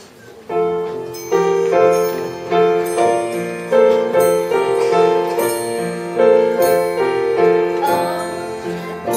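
Instrumental music: struck, ringing notes in a steady repeating pattern, starting about half a second in.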